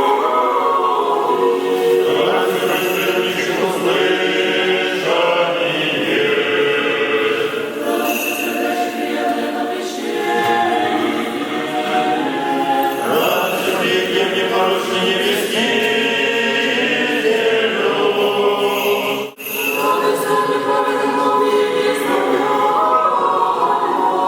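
Orthodox church choir singing a cappella, several voices in harmony, with a brief dropout in the sound about nineteen seconds in.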